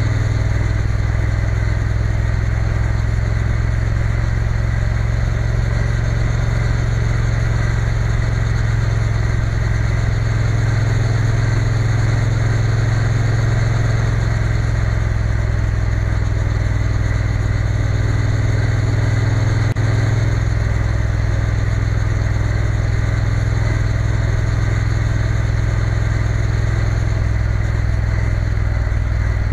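Triumph Bonneville T120's parallel-twin engine running steadily while cruising, with road and wind noise. The engine note shifts slightly about twenty seconds in.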